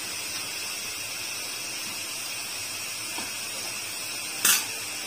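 Steady hiss of a makki ki roti (cornmeal flatbread) sizzling in ghee in a nonstick pan over a low flame, with one short louder hiss about four and a half seconds in.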